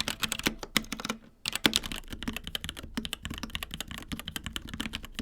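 Fast typing on a Niceboy Oryx K700X Pro mechanical keyboard with tactile Gateron Brown switches: a dense stream of key clacks, with a short pause a little over a second in.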